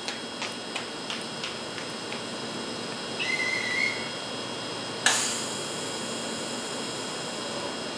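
A conductor's whistle blows one short steady note about three seconds in. About two seconds later comes a sudden burst of air hiss from the Izuhakone Railway 5000-series train's pneumatic doors closing for departure, fading into a steady hiss.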